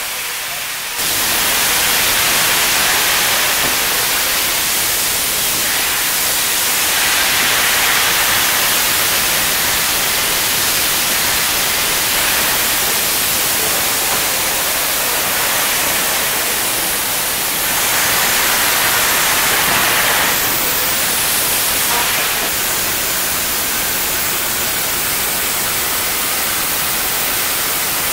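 YG-class metre-gauge steam locomotive venting steam: a loud, steady hiss that swells twice.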